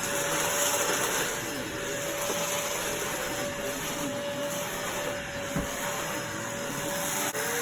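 Vacuum cleaner running steadily: a constant rushing hiss with a thin, steady whine.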